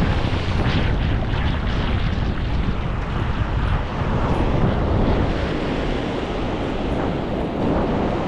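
Strong wind buffeting the microphone with a low rumble, over steady surf breaking on the beach in hurricane conditions.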